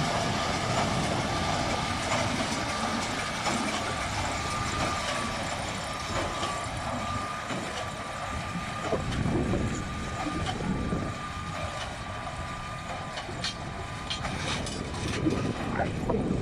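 Tractor and John Deere L624 large square baler running, a steady mechanical drone with a high whine, and a few sharp clicks near the end.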